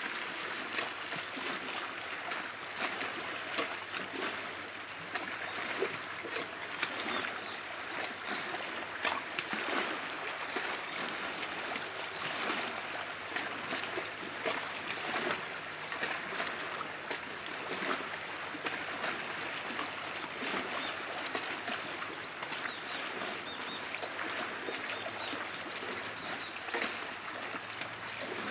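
Small waves lapping and splashing at the water's edge, a steady stream of little splashes and trickles, over a faint steady low hum.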